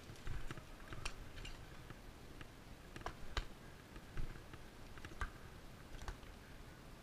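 Footsteps with scattered sharp clicks of handled gear, irregular and about one a second, over soft low thumps.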